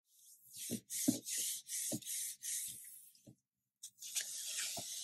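Hands rubbing a sheet of paper pressed down on a gel printing plate, burnishing it to pull the ink transfer. There are several quick rubbing strokes with soft thumps, a brief pause, then steadier rubbing.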